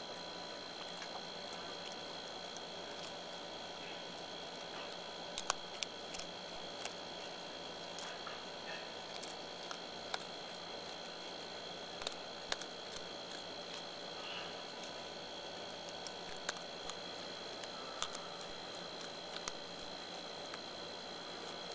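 Raccoon chewing dry dog food close to the microphone: scattered, irregular sharp crunches over a steady background hiss.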